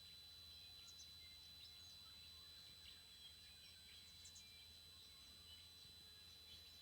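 Faint, steady high-pitched squeal from a TriStar TS-MPPT-60 solar charge controller, with scattered bird chirps around it.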